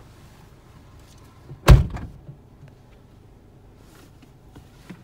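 A vehicle door shutting once with a heavy thump, about a second and a half in.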